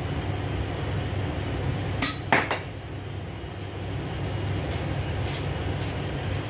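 Kitchenware clattering: two sharp clinks about two seconds in, then a few lighter taps, over the steady low hum of a range hood fan.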